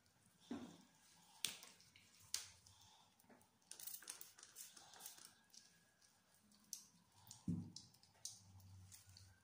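Near silence with scattered faint clicks and taps, and a soft low thump near the end, from gloved hands handling an anaesthetised cat's ear.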